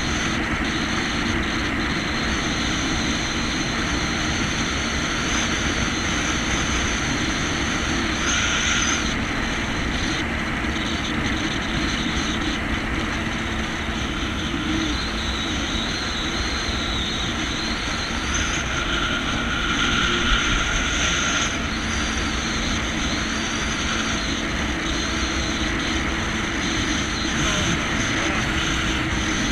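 Jet ski engine running at a steady cruise, an even drone mixed with rushing wind and water noise, picked up by a camera mounted on the craft.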